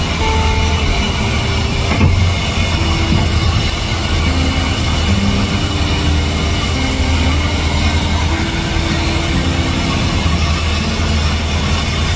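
Steady, loud low rumble of heavy machinery running, with a slow melody of held notes over it.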